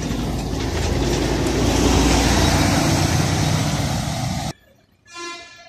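City bus driving past close by, engine and tyre noise swelling to a peak and cutting off suddenly about four and a half seconds in. A short musical tone follows near the end.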